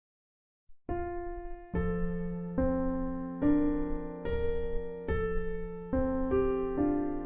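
Piano music begins about a second in: sustained chords over a held low note, a new chord struck a little more than once a second.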